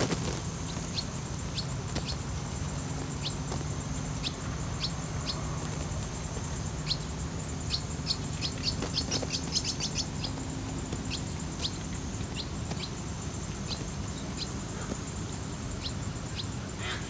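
Short, sharp high chirps from a bird, one about every second, with a quick run of them about nine seconds in.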